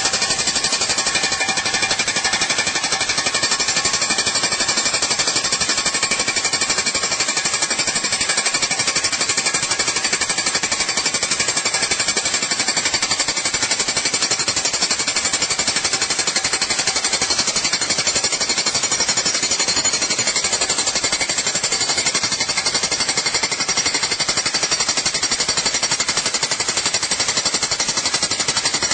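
Corded electric demolition hammer driving an Oz Post steel ground-spike post anchor into the soil. The rapid hammering runs steadily without a break.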